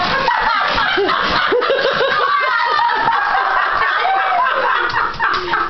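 People laughing, mixed with indistinct voices, including a quick run of short "ha-ha" pulses about a second and a half in.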